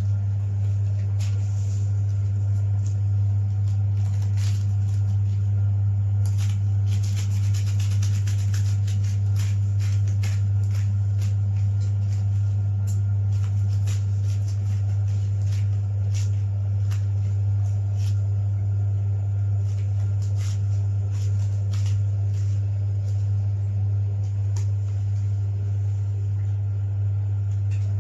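A steady low hum throughout, with scattered clicks and taps from pliers and a screwdriver as cable is connected at the exhaust fan's terminals. The fan itself is not running.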